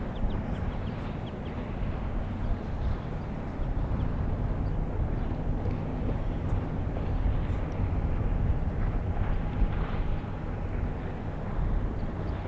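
A steady low rumble, with a few faint short high chirps in the first second or so.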